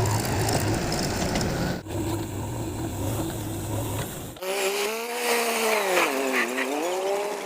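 Diesel machinery engine running steadily, with a short break about two seconds in. At about four and a half seconds it gives way abruptly to a different pitched sound whose tone sags down and rises back up before it cuts off.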